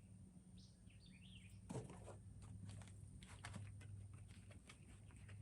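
Near silence outdoors: a steady low hum, a few faint bird chirps about a second in, and scattered soft clicks.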